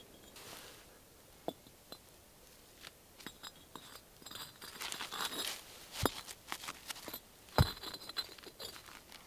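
Pale firebricks being stood on end in a ring on soil, clinking and knocking against one another, with scraping and rustling from gloved hands and earth. The two sharpest knocks come about six seconds in and again a second and a half later.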